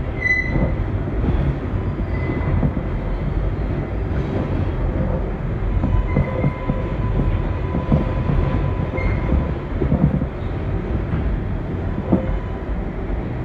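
R142A subway train running through a tunnel, heard from inside the car: a steady rumble of wheels on rail with irregular knocks from the track. Under it runs a faint steady whine, and a few brief high squeaks come and go.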